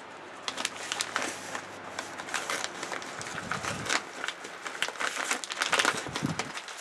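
White padded paper mailer being torn open and handled, with irregular crinkling and crackling of paper throughout.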